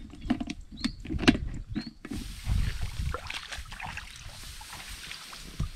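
Several sharp knocks and clicks as a plastic tray and a woven bamboo basket are handled. From about two seconds in, a steady rustling of rice plants and footsteps as someone walks through the paddy.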